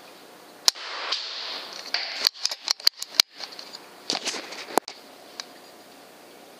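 FX Impact M3 .25 PCP air rifle firing once, a sharp crack about a second in, followed by scuffling and then a quick run of sharp clicks and knocks over the next few seconds.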